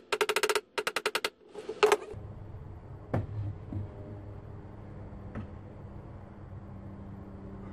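Rapid, evenly spaced mechanical tapping, about a dozen strikes a second, for the first second or so, then a few sharper hits. After that a low steady hum with two light knocks as a thin wooden shelf board is handled in the bookshelf.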